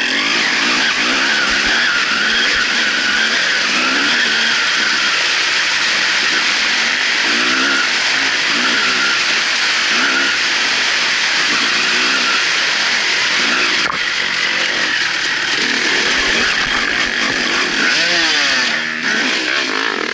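Suzuki RM250 two-stroke dirt bike engine being ridden hard, its pitch rising and falling again and again as it revs up and drops back through the gears.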